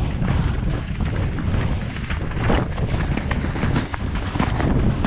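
Wind buffeting the microphone of a camera riding on a cantering horse, a continuous low rumble, with the Irish Draught's hoofbeats thudding on soft, wet turf.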